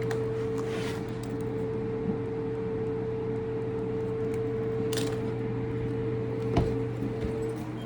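Steady machine hum with a constant mid-pitched tone, and two short clicks near the end.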